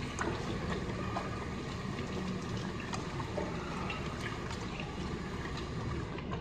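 Water running from a sink tap while hands are rinsed under it, a steady splashing with small scattered clicks and drips, as a hand scrub is washed off.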